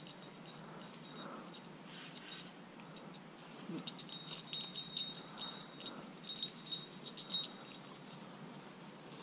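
Small bell on a hunting dog's collar jingling faintly and unevenly as the dog works through brush, with light rustling in the dry leaves. The jingling grows busier a few seconds in.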